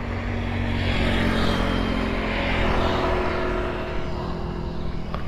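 Road traffic: a vehicle passing on the highway, its engine hum and tyre noise swelling over the first few seconds and then fading.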